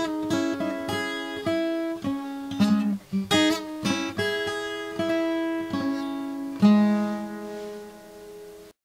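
Acoustic guitar playing the outro, picking out notes and chords with no singing. A final chord struck about two-thirds of the way through rings out and fades, and the sound cuts off abruptly just before the end.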